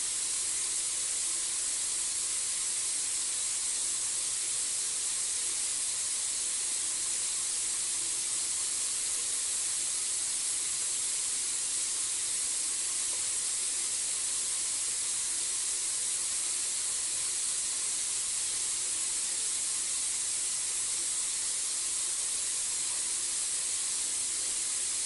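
A steady, even high-pitched hiss with no distinct calls, splashes or lapping.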